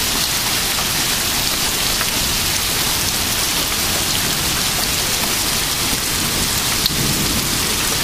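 Heavy thunderstorm rain pouring down in a steady, dense hiss.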